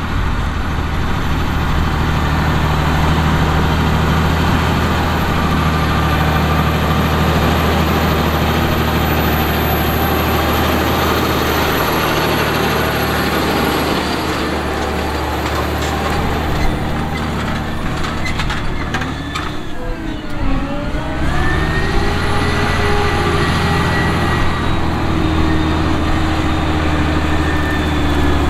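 Fendt 1167 Vario MT track tractor's MAN D4276 988-cubic-inch diesel engine working under heavy load as it pulls a nine-shank V-ripper subsoiling 16 inches deep: a steady, heavy engine drone. About twenty seconds in, the engine note dips and then climbs again.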